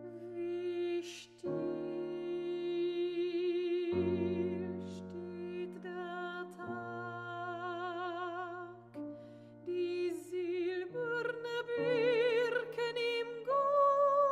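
Mezzo-soprano singing a slow classical art song with a wide vibrato, accompanied by grand piano chords. The voice climbs higher in the last few seconds.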